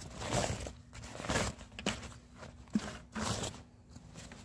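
Nylon rucksack fabric rustling as a hand opens the pack's drawstring top and rummages inside, in several short bursts, with one sharp click near the middle.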